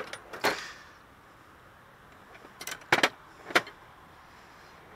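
Loose metal hand tools clinking against each other in a toolbox drawer: a few sharp clinks, about half a second in and again around three seconds in.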